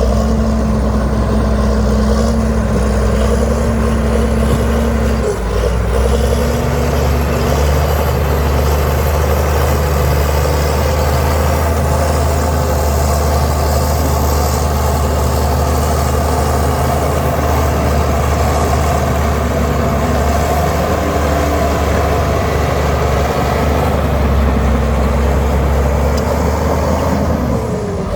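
Heavy diesel engine of earthmoving machinery running steadily under load, with a thin high whine over it. The engine note dips briefly about five seconds in and falls away near the end.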